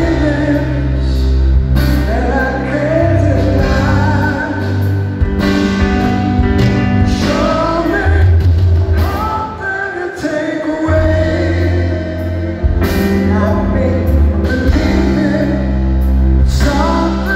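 Live rock band ballad heard from the audience: a male lead vocal sung over held keyboard chords and low sustained bass notes.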